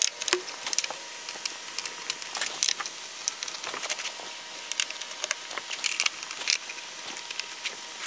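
Irregular light clicks, taps and wooden knocks from handling the coat rack's wooden door front and adjusting its hinges with a hand tool.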